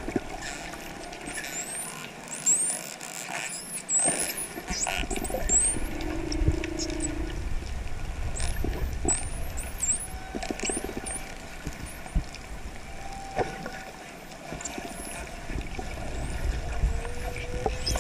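Hawaiian spinner dolphins whistling underwater: many short, high whistles that sweep up and down in pitch, with scattered clicks over a low water rumble.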